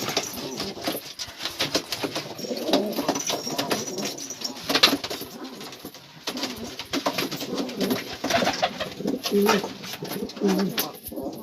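Several domestic pigeons cooing in a loft, their low cooing repeating throughout, mixed with many short clicks and taps.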